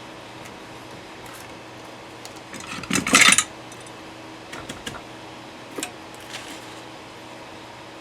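Small metal objects clattering on a workbench: a short rattle about three seconds in, then a few lighter clicks.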